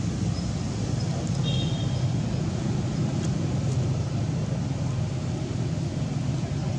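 Steady low rumbling background noise, even in level throughout, with a faint short high chirp about a second and a half in.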